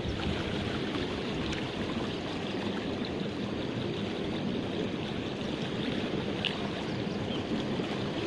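Steady rushing of flowing canal water.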